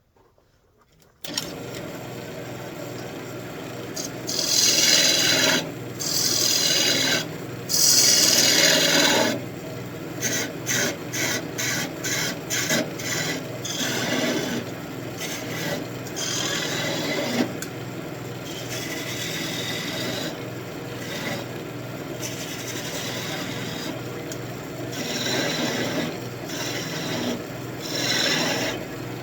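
Wood lathe spinning an elm spoon blank while a turning tool cuts a round-over into it: a steady running hum starts about a second in, with scraping cuts on top, several long strokes followed by a run of quick short ones.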